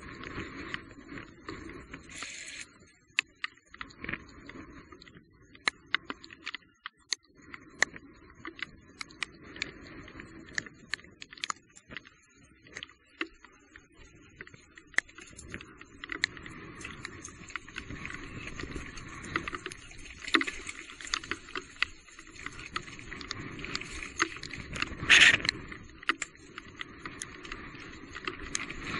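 Electric mountain bike riding over a rough, wet trail: uneven tyre noise with many sharp clicks and rattles, and a louder burst about 25 seconds in.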